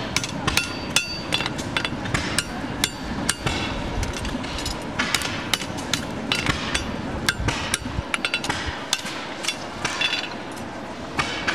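Farrier's hammer striking a red-hot steel draft horseshoe on an anvil while forging it: a run of sharp, ringing metal blows, two or three a second, with brief pauses between runs.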